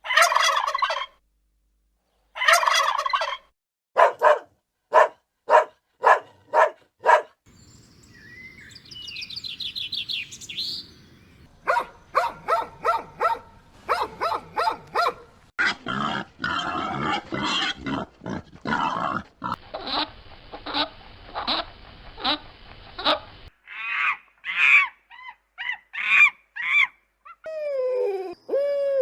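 A run of separate animal-call recordings, one after another, mostly birds calling in quick repeated series, with turkey-like gobbling the strongest. Near the end, falling, gliding calls come in.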